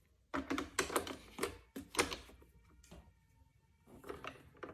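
A run of sharp clicks and knocks as the middle (main) brush of a Xiaomi Roborock E20 robot vacuum is fitted back into its housing, thickest in the first two seconds, with a few fainter ones near the end.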